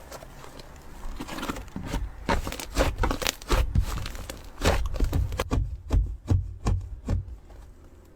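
Slime being squeezed and pressed by hand, giving a run of sharp clicks and pops that quicken to about four a second in the second half.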